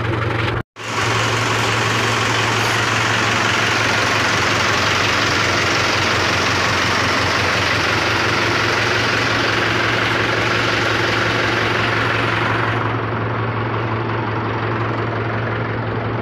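Mahindra tractor's diesel engine idling steadily, with a brief total cutout about half a second in; the higher hiss softens a little near the end.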